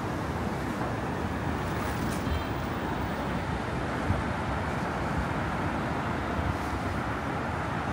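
Steady city street ambience: a continuous wash of road traffic noise with a low rumble.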